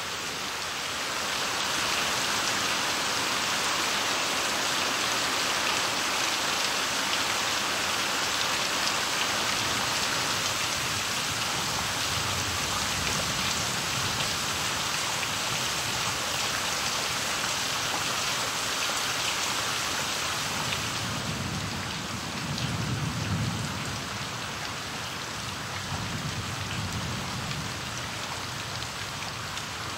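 Steady rain falling, spattering on puddled ground and leaves; the rain eases a little about two-thirds of the way in. Low rumbles of thunder roll through a few times in the second half.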